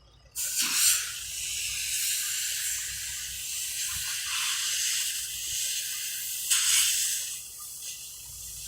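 Compressed air hissing from the air brake lines of an International 9800 tractor. The hiss starts suddenly with a loud blast, runs on steadily, blasts again near seven seconds, then drops to a weaker hiss.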